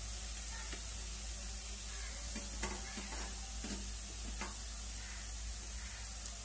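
Faint steady sizzle of mashed raw banana cooking in a nonstick pan as grated coconut is sprinkled over it, with a few soft ticks around the middle.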